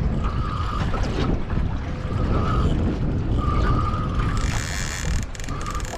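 Wind buffeting the microphone, with a fishing reel's drag buzzing in short bursts about once a second as a hooked fish pulls line off. A hiss comes in near the end.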